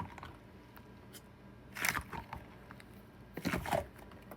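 A foam squishy toy being pressed and handled: two short squishing, rustling sounds, about two seconds in and again about a second and a half later, the second ending in a brief squeak.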